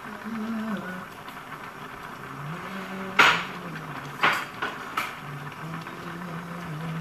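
Dishes and utensils handled at a kitchen counter: a few sharp clinks and knocks, the loudest about three seconds in and three lighter ones about a second later.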